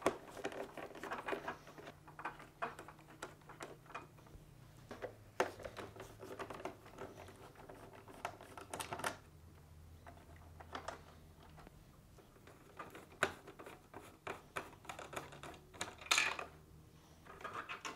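Irregular light clicks and taps of a 1/4-inch nut driver working screws out of a refrigerator's plastic dispenser housing, with plastic parts and wiring being handled.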